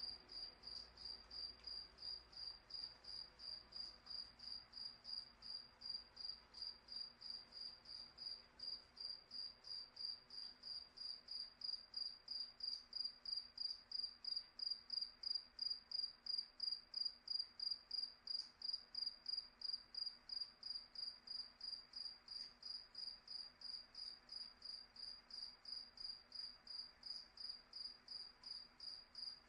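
A cricket chirping: one high, steady-pitched chirp repeated at an even pace, about three times a second.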